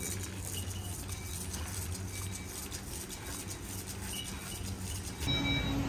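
Shopping cart rolling across a warehouse store's concrete floor, a rough, uneven rattle over a steady low hum; about five seconds in the sound cuts abruptly to a different steady hum.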